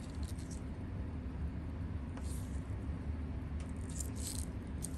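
Steady low hum with a few short, light scratchy clicks at irregular spacing, mostly in the second half: small handling sounds at a watchmaker's bench.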